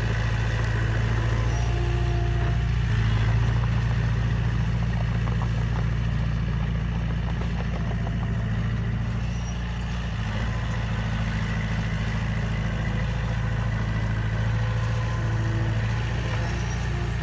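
Small crawler bulldozer's engine running steadily with a low hum as the dozer pushes soil with its blade.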